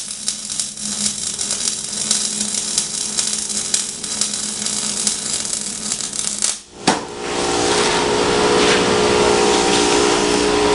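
Welding arc crackling and hissing with irregular spatter for about six and a half seconds. It breaks off with a sharp click, and a steadier machine hum with a few steady tones follows.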